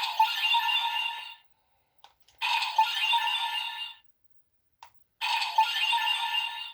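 DX White Leo Vice Stamp toy playing an electronic music-and-sound-effect clip through its small tinny speaker, three times over. Each clip lasts about a second and a half and starts right after a short click of the toy being pressed.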